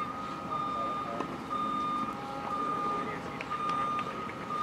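Electronic beeper sounding a steady, repeated single-pitched beep, about two beeps a second, over faint background noise.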